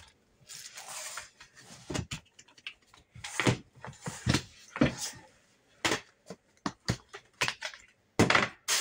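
Rummaging through plastic storage bins and bags: rustling of plastic and fabric with irregular knocks and clatters as bins and lids are handled, loudest in a rustling clatter near the end.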